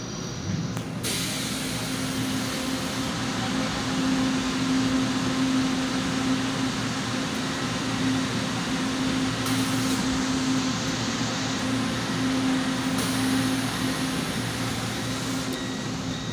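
Steady hum and hiss of an LRT-2 light rail car's air conditioning while the train stands at a station, the hiss growing stronger about a second in.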